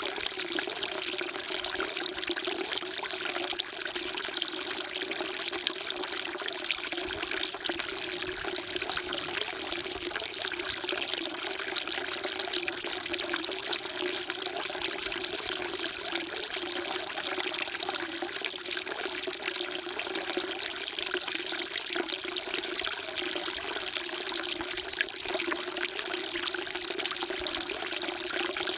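A thin stream of water from a carved stone spout falling into a stone basin of standing water, splashing and trickling steadily.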